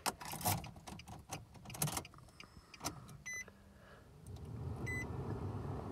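Keys jangling and clicking as a key goes into a 2013 Nissan Frontier's ignition cylinder and the ignition is switched on. Short high beeps then repeat about every second and a half, and a steady hum comes up about four seconds in.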